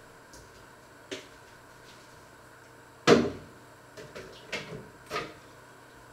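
Kitchen clatter from things being handled: a light knock, then one loud bang with a short ring about three seconds in, followed by three or four smaller clunks.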